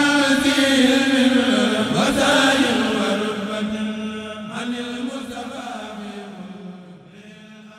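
Chanted vocal music over a steady held drone note, fading out over the last few seconds.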